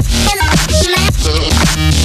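Loud electronic music with heavy bass.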